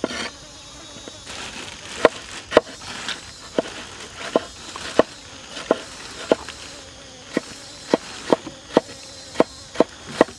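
Kitchen knife chopping bell pepper and tomato on a wooden cutting board: about fifteen sharp knocks of the blade striking the board, irregularly spaced at one or two a second.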